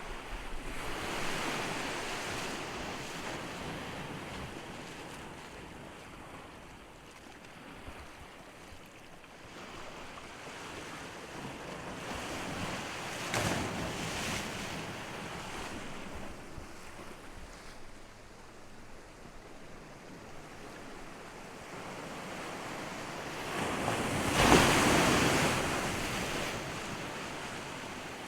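Ocean surf: waves breaking and washing up the shore, the rush swelling and fading three times, loudest near the end.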